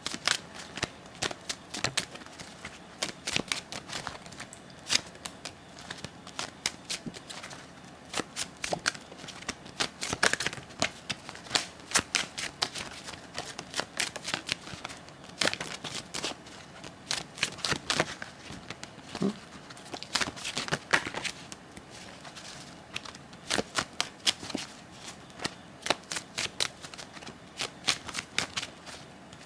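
A tarot deck being shuffled and cut by hand: a long run of irregular crisp clicks and snaps of cards against each other, coming in denser clusters at times.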